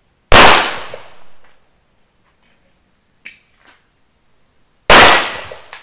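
Two pistol shots about four and a half seconds apart, each a sharp crack that echoes away over about a second, with a couple of faint clicks between them.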